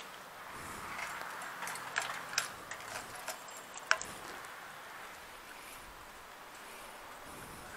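Steady, muffled hiss of a Kawasaki Ninja on the move, with a few sharp clicks about two, two and a half and four seconds in.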